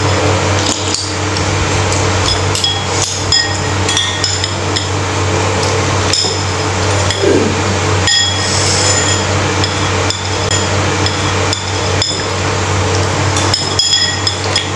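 Metal spoons and forks clinking and scraping against a ceramic soup bowl, many light clinks with a short ringing tone, over a steady low hum.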